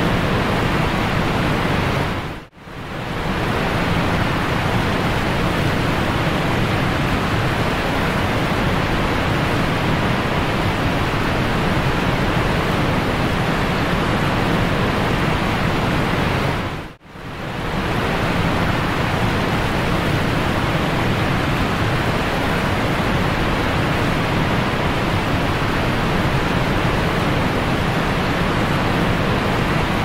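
Waterfall rushing in a steady, dense hiss of falling water. The sound dips out for a moment twice, about two seconds in and again a little past halfway, and swells straight back.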